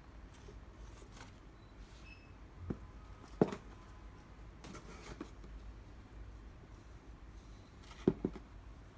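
Light handling noises of a pair of sneakers: a few soft knocks and taps over a low steady hum. The loudest tap comes about three and a half seconds in, and two come close together near the end.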